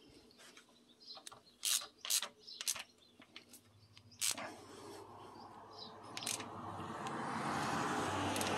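Ratchet wrench with a 14 mm socket tightening the timing-belt tensioner bolt: a few separate clicks and knocks at first, then a steady rasping ratchet noise that builds from about halfway through.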